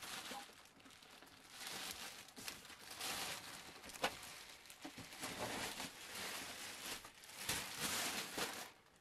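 Plastic packaging bag crinkling and rustling in waves as it is worked off a printer by hand, with a single sharp knock about four seconds in.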